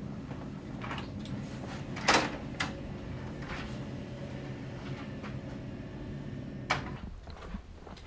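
A few sharp knocks over a steady low room hum, the loudest a bang about two seconds in and another near the end. The hum cuts off suddenly about seven seconds in.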